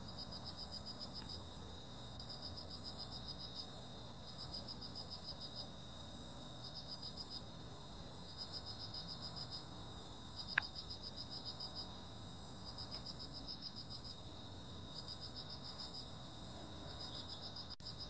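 Crickets chirping: one sings trains of rapid pulses about a second long, every couple of seconds, over a steady high trill. A single sharp click comes about ten and a half seconds in.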